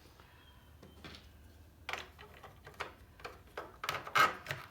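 Hands handling the parts of a circular saw during a cord repair, making a scattered run of small clicks and knocks. They begin about two seconds in, and the loudest knock comes near the end.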